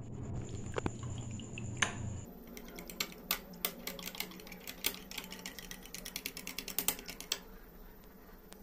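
Metal fork whisking custard powder and cornflour into milk in a small glass bowl, its tines clicking quickly against the glass. The clicking thins out and stops near the end. A low hum in the background cuts off about two seconds in.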